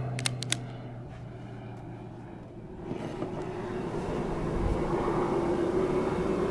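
Three quick light clicks just after the start, then a motor drone that swells in from about three seconds in and holds steady with a low hum, like a passing vehicle or aircraft.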